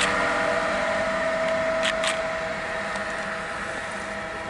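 Pesa Gama 111Eb electric locomotive pulling away with its train, a steady hum of several held tones that fades slowly as it recedes. Two short clicks come about two seconds in.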